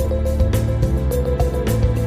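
Calm instrumental background music: held tones under a steady rhythm of recurring notes.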